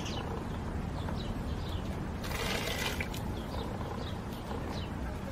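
Cooked hominy corn being scooped from a clay bowl with a clay cup and tipped into a pot of boiling water, with one rushing pour lasting under a second about two seconds in. Faint bird chirps come and go over a steady background hiss.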